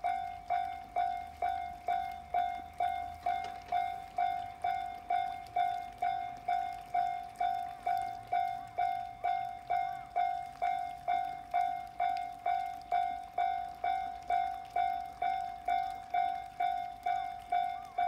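Electronic railway level-crossing alarm of the Tobu 'Tōjō' type ringing a steady repeated ding, about two strokes a second, each stroke fading quickly. It is the warning that a train is approaching while the crossing barriers lower.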